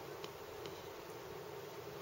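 Hiccups: a couple of faint quick clicks over a steady low hum, with a sharper hiccup right at the end.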